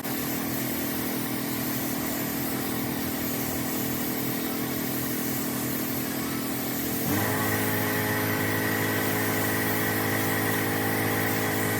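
An engine running steadily at an even speed, its tone shifting abruptly about seven seconds in.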